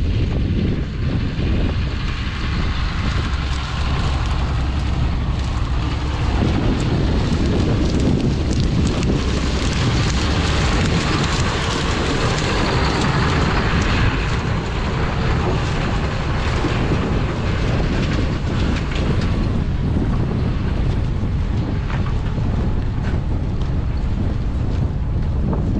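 Harvest machinery running steadily: a low engine drone with a rushing noise that swells in the middle and fades after about twenty seconds, and wind on the microphone.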